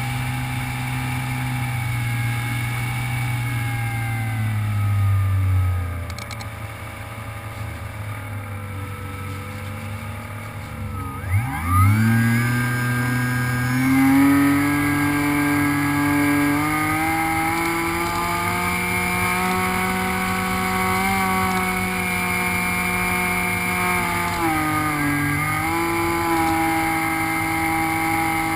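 Electric motor and pusher propeller of an HK FPV Raptor RC plane in flight, heard from on board: a steady whine whose pitch falls as the throttle is eased about five seconds in, stays low, then climbs sharply back to high throttle around eleven seconds in and holds, with a short dip near the end.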